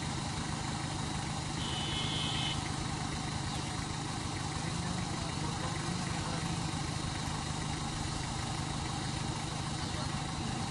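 Vehicle engines idling with a steady low hum, with a brief high tone about two seconds in.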